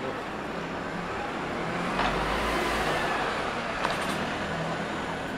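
A bus driving past close by, its engine and tyres swelling to a peak about two seconds in and then easing off.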